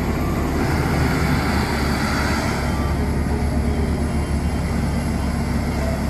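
A Caterpillar 972K wheel loader's diesel engine runs steadily as the loader drives across a gravel pile.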